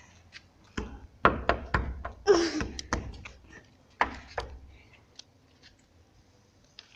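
A quick run of knocks and thumps, about eight in the first four and a half seconds, then a few faint ticks.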